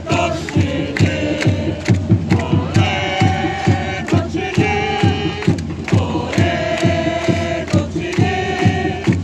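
Football supporters singing a chant in unison over a steady drumbeat of about three to four beats a second.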